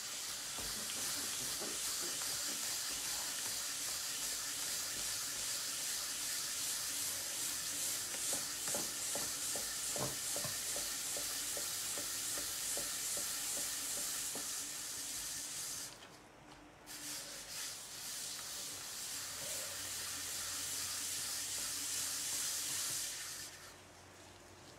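Gloved hands pressing and sliding on wet black clay spinning on a pottery wheel while it is being centered: a steady wet rubbing noise that breaks off briefly about two-thirds of the way through and again near the end. A low hum from the wheel motor runs underneath.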